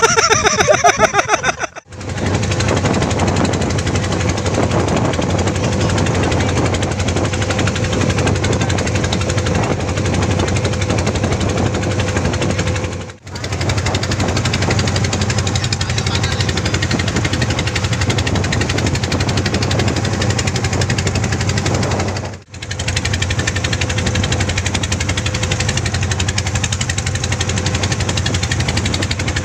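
Wooden fishing boat's engine running steadily under way, a fast, even knocking beat with a low hum and a steady tone, broken by three short gaps.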